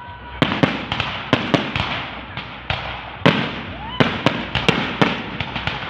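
Fireworks going off: a fast, irregular string of more than a dozen sharp bangs, with crackling between them.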